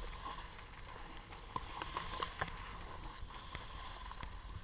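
Skis sliding and carving over snow on a downhill run, with wind rumbling on the microphone and scattered light clicks and knocks.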